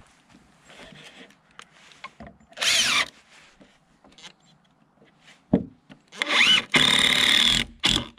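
Cordless drill-driver driving screws into treated lumber to fasten a picnic-table bench board to its cross piece: a short run about a third of the way in, a knock, then a longer run near the end, each spinning up with a rising whine.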